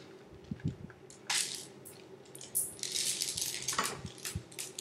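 Handling noises from a plastic airsoft gun and its magazine: scattered sharp clicks and knocks, with a busier run of rustling and clicking in the middle.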